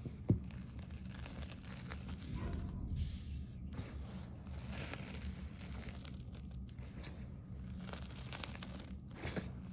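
Hands digging, pressing and crumbling loose green gym chalk powder in a tray, giving a soft, continuous crunching and rustling. There is one sharp thump just after the start.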